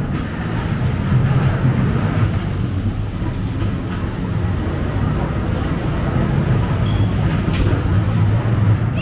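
Ghost train ride car rumbling steadily along its track, with a single sharp knock about seven and a half seconds in.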